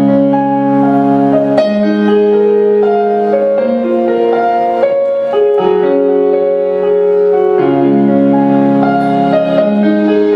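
Slow instrumental music: sustained chords changing every couple of seconds under a melody line.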